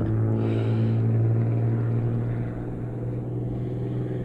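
A steady engine drone with a low, even hum, slowly growing fainter toward the end.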